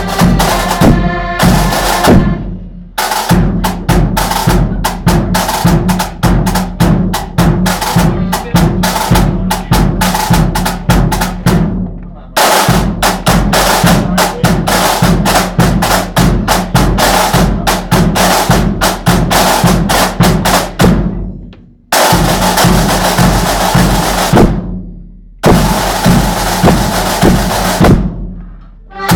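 Marching-band side drums playing fast snare rhythms and rolls over a bass drum beat, with accordion chords heard briefly at the start. The drumming stops dead several times, and after one long roll it cuts off.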